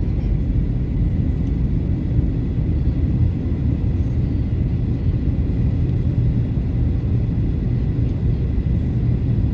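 Cabin noise of a jet airliner in flight: a steady, low rumble of engines and rushing air, with a faint steady high whine above it.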